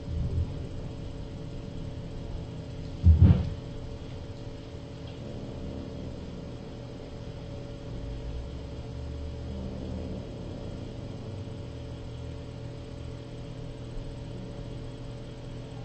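Steady low room hum from a live-stream camera's microphone, with one dull thump about three seconds in.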